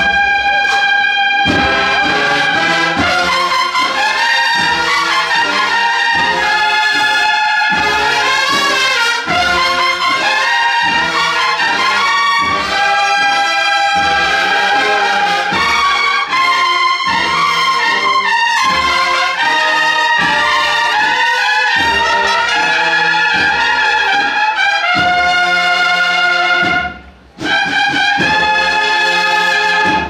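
Cornet-and-drum processional band (banda de cornetas y tambores) playing a march: bugle-like cornets in harmony over a steady drum beat. The band breaks off briefly near the end, then comes back in on held notes.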